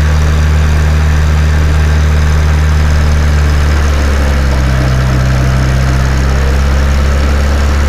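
LS 30 drill rig's engine running steadily and loudly, its low hum shifting slightly in pitch between about four and seven seconds in before settling back.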